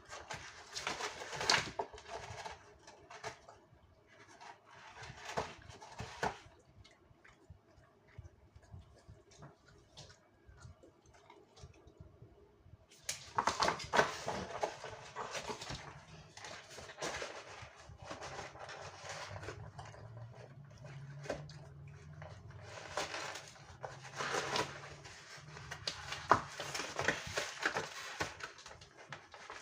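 A Labrador and a kitten playing: irregular scuffling, rustling and taps of paws, quieter for a few seconds, then busier in the second half.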